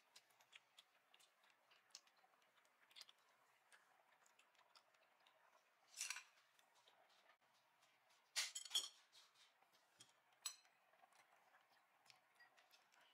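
Quiet clicks and clinks of chopsticks and cutlery against plates and bowls as people eat, with a few sharper clinks about six seconds in and again between eight and nine seconds.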